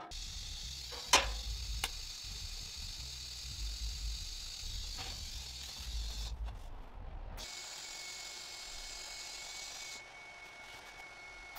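Steady hiss of a TIG welding arc on stainless steel tubing, with two sharp clicks in the first two seconds. About seven seconds in the low rumble drops away and a thin, steady high whine joins the hiss.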